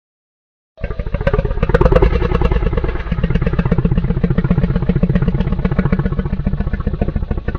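A deep, rapidly pulsing growl presented as the call of the extinct giant crocodilian Purussaurus brasiliensis, a made-up creature sound effect. It starts abruptly about a second in, after silence, and runs on evenly for several seconds.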